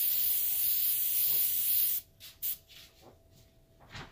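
Airbrush spraying paint with a steady high air hiss that cuts off suddenly about halfway through, as a soft shading line is sprayed while pulling away from the surface. A few faint clicks follow.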